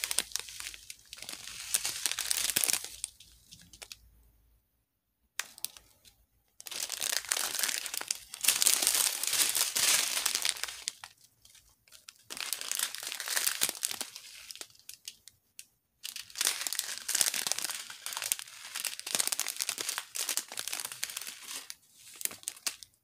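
Clear plastic bags of diamond painting drills crinkling as they are handled, in bursts with a few short pauses.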